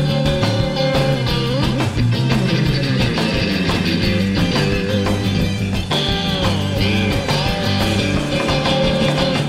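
Background rock music with guitar, several notes bending in pitch.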